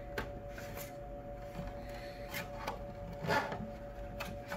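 Cardboard fan packaging being handled: scattered rubs, scrapes and light taps, over a faint steady two-note hum.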